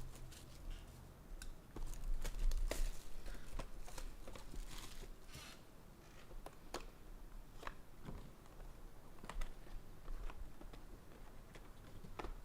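Opening and handling a box of 2022 Bowman Sterling baseball cards: wrapper and packaging rustling, crinkling and tearing, with scattered clicks and taps.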